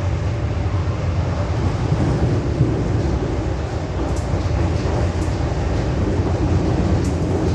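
Metro Cammell AC electric multiple unit train running, heard from inside the carriage: a steady, deep rumble of wheels on track and traction noise.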